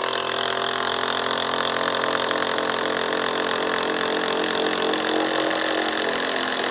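Cordless drill driving a large screw into timber, its motor whirring steadily at full speed, the pitch dipping slightly near the end as the screw bites.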